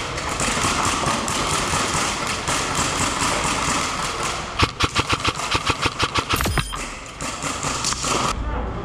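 A rapid burst of airsoft gunfire about five seconds in, roughly seven shots a second for about two seconds, over a steady hiss. The hiss cuts off suddenly near the end.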